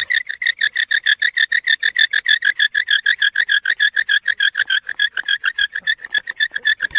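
Wooden bow drill worked fast: the spindle squeaks with every stroke of the bow, a rapid, even run of high squeaks at one steady pitch, about eight a second.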